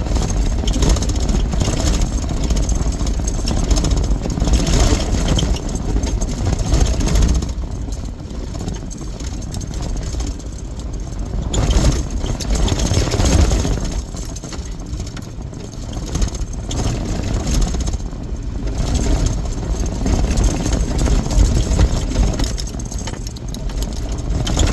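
A Jeep being driven on a rough dirt trail: a steady low engine and road rumble that swells and eases every few seconds.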